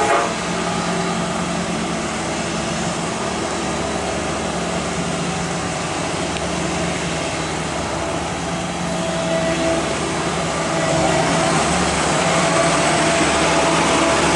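Engine of road-repair machinery running steadily, growing louder about three-quarters of the way through.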